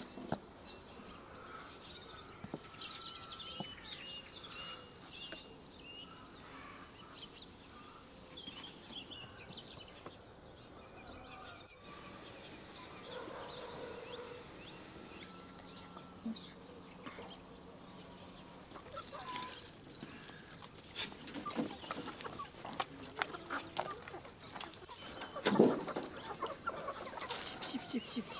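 Chickens clucking with small birds chirping, and a few sharp knocks near the end, the loudest about 25 seconds in.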